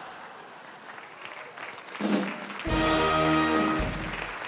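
Audience applauding, with a short held chord from a brass band, a carnival Tusch marking the punchline, coming in about two-thirds of the way through and lasting about a second and a half.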